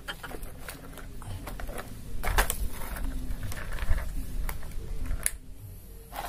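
Hard plastic toys handled by hand: a toy excavator and toy truck knocking and scraping against a cardboard trailer and gravel, in scattered clicks and taps, the loudest about two and a half and four seconds in.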